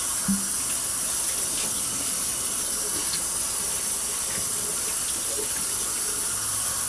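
Kitchen faucet running steadily, the water splashing over a glass microwave plate held under it and into a stainless steel sink as the plate is rinsed.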